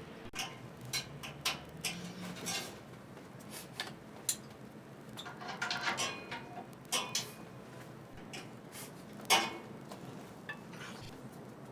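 Metal grill parts clinking and knocking as they are handled and fitted together, in irregular scattered strikes, with one louder knock about nine seconds in.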